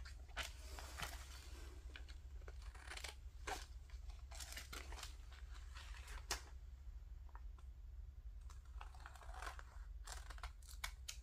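Scissors cutting paper cardstock, with paper being handled and rustled: a series of faint, irregular snips and rustles.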